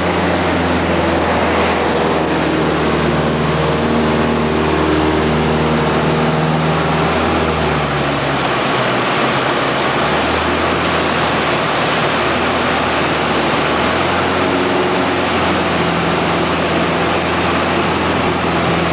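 Cockpit noise of a Mudry CAP 10B in flight: the four-cylinder Lycoming engine and propeller running under a loud, steady rush of air. The engine note shifts in pitch around the middle, then settles.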